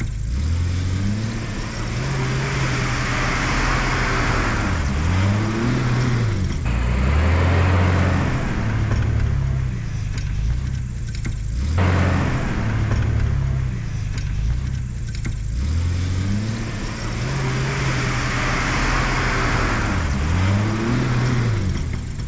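Jeep Cherokee XJ driving over a grassy off-road trail. The engine note dips and rises in pitch a few times as it slows and picks up speed, over a steady wash of wind and tyre noise.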